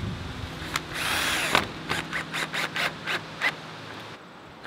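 Cordless drill-driver driving screws through a steel hinge into a wooden door frame: the motor runs in a short loud burst about a second in, then gives a string of short clicks as the screw is driven home.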